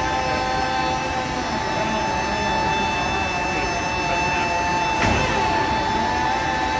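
Airbus A320 hydraulic system running for a landing gear swing, a steady multi-tone whine over a rushing bed, with one sharp clunk from the gear mechanism about five seconds in.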